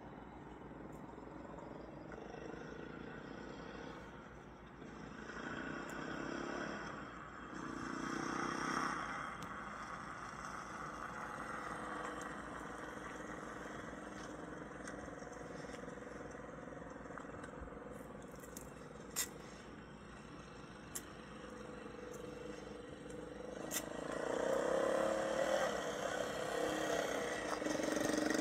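Yamaha TT-R dirt bike's single-cylinder four-stroke engine running as it rides at a distance, heard through a laptop speaker, with the engine swelling a few times and growing louder near the end. A few sharp clicks come in the second half.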